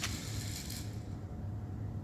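Top Race 1:64-scale micro RC dump truck driving itself in demo mode: a steady low hum, with a short hiss in the first second.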